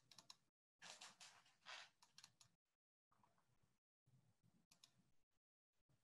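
Near silence with faint computer keyboard typing and clicking picked up by a video-call microphone. The sound cuts in and out abruptly, and the densest run of keystrokes comes about a second in.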